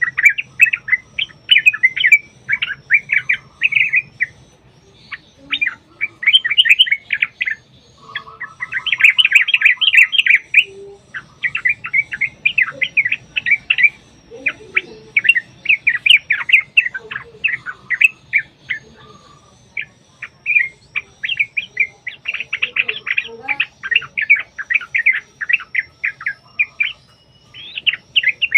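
Yellow-vented bulbuls (trucukan) singing in long, rapid, bubbling phrases, one after another with only brief gaps: the agitated, competing song of birds in a territorial contest. A faint low hum sits underneath.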